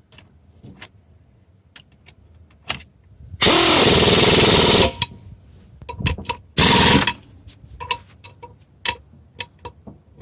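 Impact wrench hammering a wheel-weight bolt tight: one run of about a second and a half, then a second shorter run about three seconds later, with sharp metal clinks and knocks of the socket and bolt in between.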